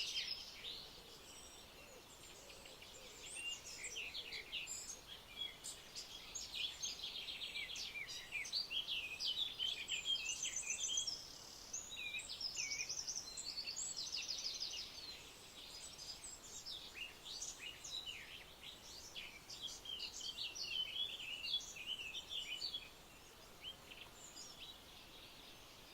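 Wild birds singing and calling in a forest, with many varied chirps and quick trills that overlap, over a steady background hiss. The calls thin out near the end.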